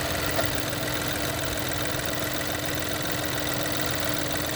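2024 Chevrolet Trailblazer idling steadily with the A/C on, with a light click about half a second in. The A/C compressor clutch is short cycling, which the owner puts down to a bad low-pressure switch or a low refrigerant charge.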